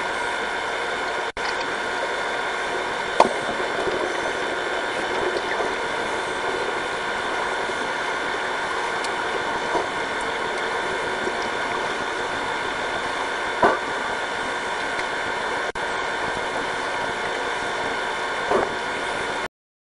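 Steady mechanical hum and hiss with several fixed tones, picked up by a camera underwater in a pool, with a few brief knocks; it cuts off suddenly near the end.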